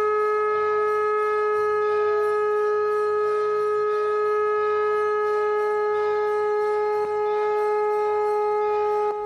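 A conch shell (shankh) blown in one long, steady note, with a brief dip about seven seconds in.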